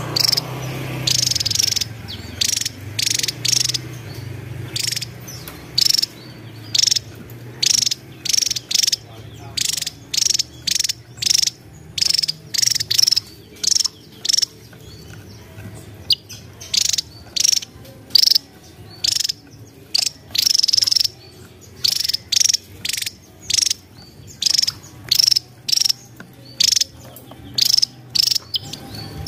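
Javan tesia calling: a long series of short, high, buzzy chips, about one or two a second with uneven gaps.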